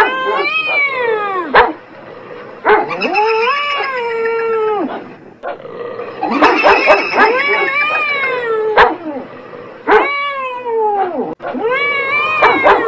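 Cats yowling in a long drawn-out caterwaul, about five calls, each rising and then falling in pitch.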